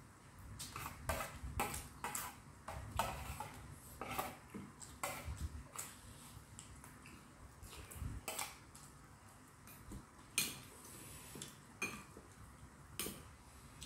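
Metal spoon clinking and scraping on ceramic plates and bowls, mixed with close chewing and mouth noises of people eating. The clicks come irregularly, with one sharper clink about ten seconds in.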